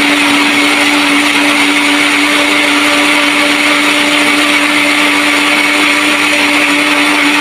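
Electric countertop blender running steadily, puréeing chopped sweet corn with a little water until smooth: an even motor hum under a dense whirring noise that does not change.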